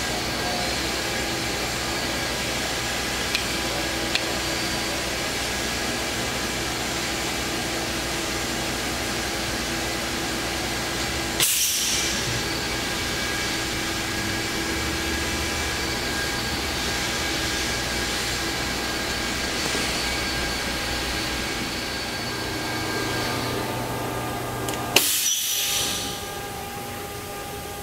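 Fadal VMC4020HT CNC vertical machining center standing powered up, a steady hum carrying several steady tones. About eleven seconds in comes a sharp clack with a brief hiss as the machine goes into emergency stop. Near the end there is another sharp clack and a second-long hiss, and then the hum falls away as the machine is powered down.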